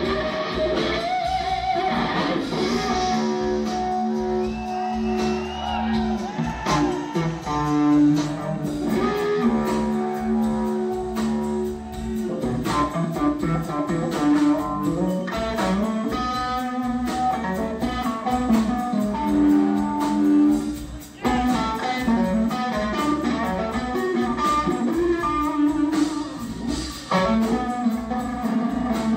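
Live blues-rock band: a Fender Stratocaster electric guitar played through Marshall amplifiers, with held and bending notes, over drums and bass.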